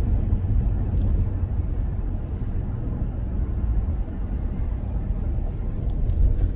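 Steady low rumble of a car's road and engine noise, heard inside the cabin while driving.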